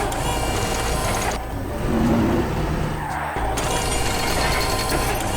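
Heavy construction-machine sound effects: a steady engine rumble with mechanical ratcheting and clatter. The high clatter drops out for about two seconds in the middle, then returns.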